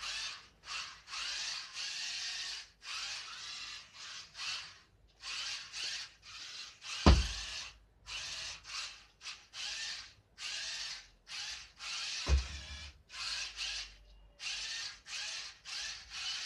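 Small geared DC motors of a homemade Bluetooth-controlled car whirring in short bursts, each well under a second, as the car is driven in stop-and-go spurts. There are two thumps, one about seven seconds in and one about twelve seconds in.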